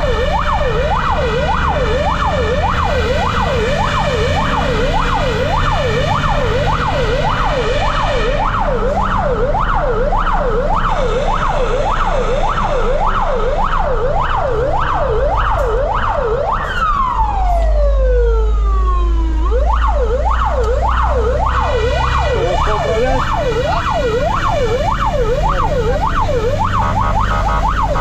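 Fire engine's electronic siren sounding a fast yelp, rising and falling about three times a second. About two-thirds of the way in it breaks into one long falling wail, then the yelp resumes. A low engine rumble runs beneath it.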